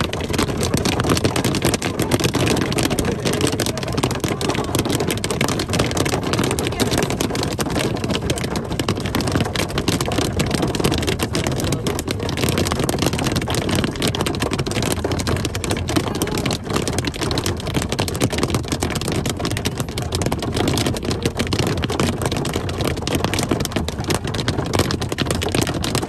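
Heard from inside a moving car: a dense, steady patter of hail and rain striking the car, over the tyres running on a hail-covered road.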